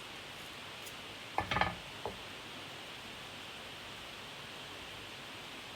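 A quick cluster of small sharp clicks and knocks about a second and a half in, over a steady background hiss.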